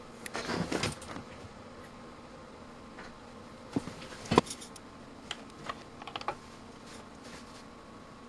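Handling noise, then a run of sharp clicks, the loudest about halfway through and a few quick ones after it: the multimeter's rotary range selector being turned through its detents on the test bench.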